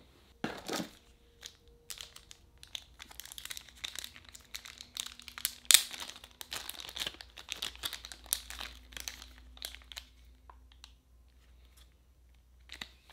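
Plastic wrapping crinkling and tearing as it is worked off a small camera battery by hand: irregular crackles, with a louder burst just after the start and the sharpest crackle about six seconds in, thinning to a few small clicks near the end.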